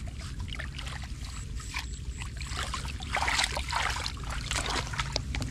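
Hands groping and scooping through shallow muddy water, with small splashes and trickles that grow busier about three seconds in.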